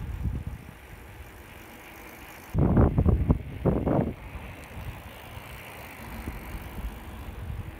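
Wind rumbling on a phone's microphone while riding a bicycle along a tarmac lane, with a loud burst of wind buffeting about three seconds in that lasts a second and a half.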